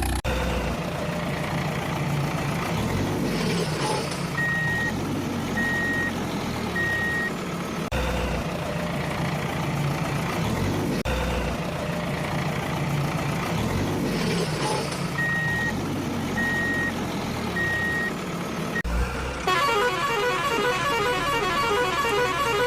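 Truck sound effect: a heavy engine running, with a set of three short high beeps that comes twice. About three-quarters of the way through it gives way to a different, rhythmic sound.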